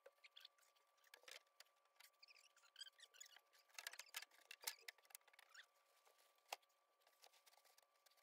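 Near silence: faint scratchy rustles and scattered ticks, with a couple of soft knocks about four and a half and six and a half seconds in, over a faint steady whine.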